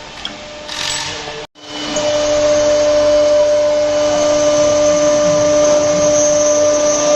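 Leapion LR-1325E CNC router spindle running with a steady whine, machining MDF. The sound drops out for an instant about a second and a half in, then comes back louder and holds steady.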